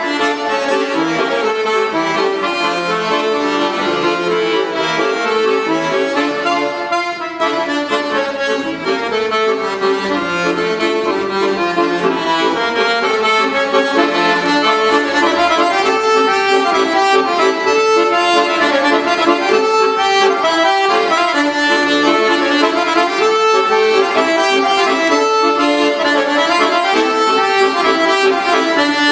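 Accordion playing a forró tune, a piece written to imitate a train.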